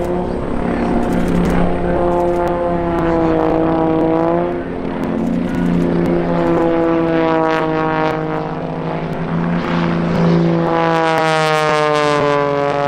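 An aerobatic propeller plane's engine flying close to a helicopter: the engine note slides down in pitch several times as the plane passes, over a steady lower drone.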